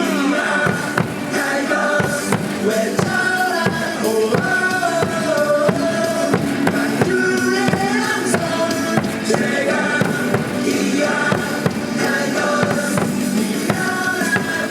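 Cheer music with a steady beat and a melody, played loud over a baseball stadium's loudspeakers.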